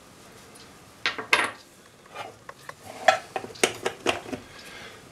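Small cast-metal parts of a Stanley 71 router plane clinking and being set down on the workbench. There is a pair of sharp clicks about a second in, then a run of lighter clinks and taps over the next couple of seconds.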